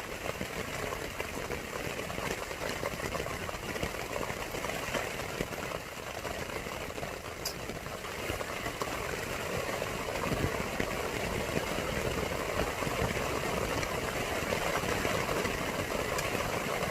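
Rain falling steadily on a tent: an even hiss that does not let up.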